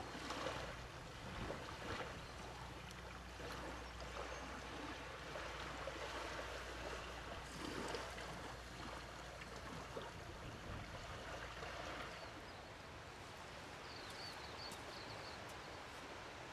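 Small, gentle waves washing and lapping in the shallows of a calm sea at neap tide, with a low steady rumble under the wash that stops about twelve seconds in.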